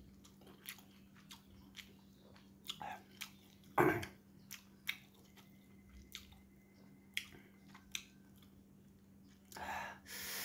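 A person chewing and swallowing the last of a meal close to the microphone: soft, scattered wet mouth clicks, with one louder bite about four seconds in and a short breathy rush near the end.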